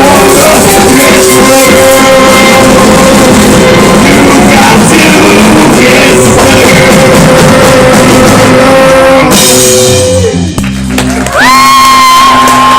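Live rock band of drums, bass, electric guitar and saxophone playing loud. About ten seconds in the playing breaks off briefly, then the band holds a long closing chord, with a high note sliding up into it.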